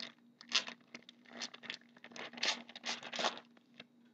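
A hockey card pack's wrapper crinkling and cards sliding against each other as they are handled, in a run of short, uneven rustles.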